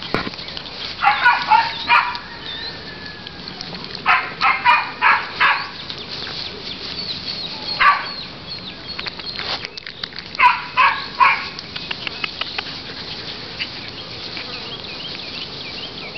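Corgi-Sheltie mix puppies yipping in quick bursts of three to five high yaps, four times over.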